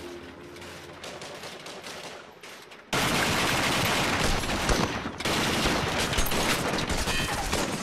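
Heavy, rapid gunfire in a dense, continuous volley, starting suddenly about three seconds in, with a short dip about five seconds in.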